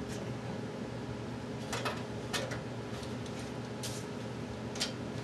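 About five short, faint clicks and knocks scattered through the middle, over a steady low electrical hum.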